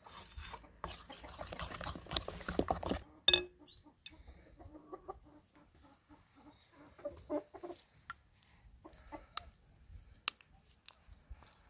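A wooden stick stirs thick, sticky amlou paste in a glass bowl for about three seconds, ending in a sharp knock. Then hens cluck in short repeated notes, with a few small spoon clicks after.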